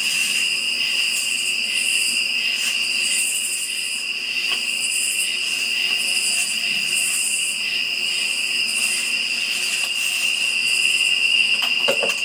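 Night insects calling: a steady, high trill that never lets up, with a higher chorus pulsing about once a second over it.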